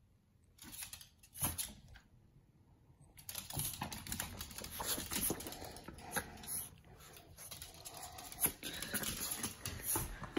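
Yorkshire terriers scampering and scrabbling about, their claws clicking rapidly on a hardwood floor. After a quiet start with one knock, the clatter becomes busy and near-continuous from about three seconds in.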